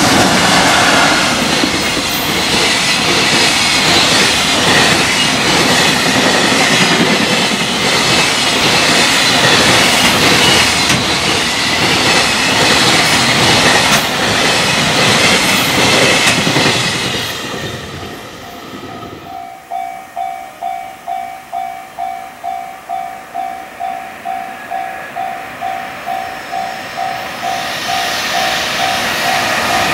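A long Japanese freight train passing a level crossing at speed, its wheels and wagons making a loud, continuous rush that dies away about 17 seconds in. The crossing's warning bell then rings steadily, about two strikes a second, and another train's approach starts to build near the end.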